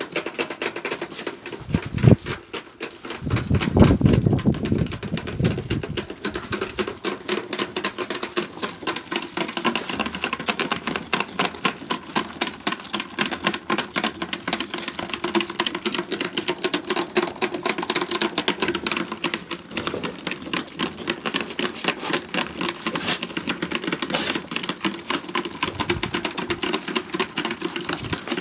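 Several lambs sucking milk from the rubber teats of a multi-teat bucket feeder: a fast, continuous patter of sucking and smacking clicks. A couple of dull thumps sound in the first few seconds.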